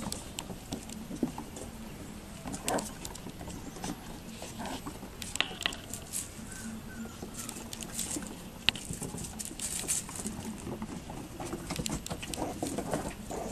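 Yorkiepoo puppies scampering and play-fighting on a wooden deck: an irregular scatter of small clicks and pattering taps from their paws and claws on the boards.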